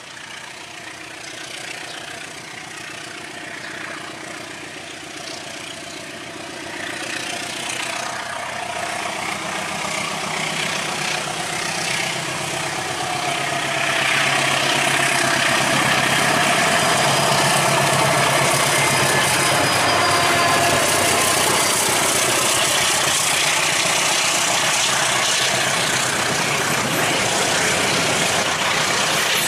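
KAI CC206 diesel-electric locomotive hauling a passenger train as it approaches, its engine growing louder over the first half. It then holds loud and steady as the train draws near on the rails.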